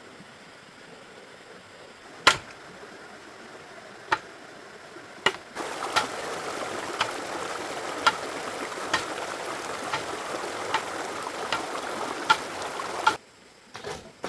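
A series of sharp strikes, about one a second, each with a short ring, over a steady rushing hiss that comes in partway through and cuts off suddenly near the end.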